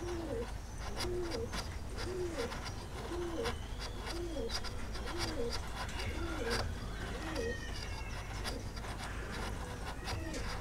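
A dove cooing over and over in a steady rhythm, a little more than once a second, under short scraping clicks of a hand chisel paring wood.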